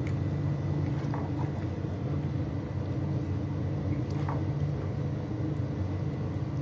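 A steady low machine hum, with a few faint scrapes and clicks of a spatula as cooked chicken curry is spooned from a nonstick pan into a glass bowl.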